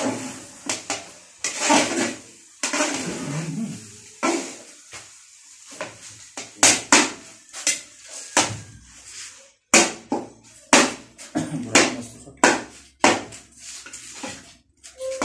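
Metal spatula scraping and clanking against the inside of a large iron wok while fried rice is stir-fried. The strikes are sharp and irregular, thickening into a run of clanks about one or two a second after the first few seconds.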